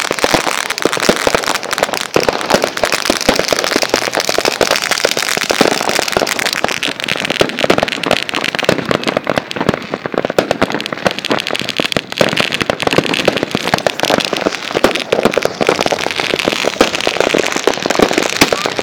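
Firecrackers going off in a dense, unbroken run of rapid, deafening pops.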